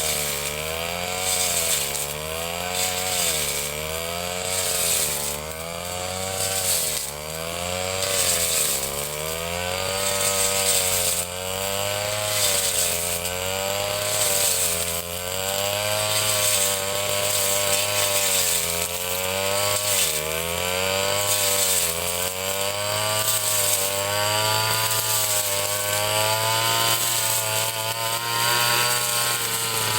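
Ryu 30.5 cc two-stroke brush cutter running under load while cutting grass. The engine pitch rises and falls about once every one to two seconds.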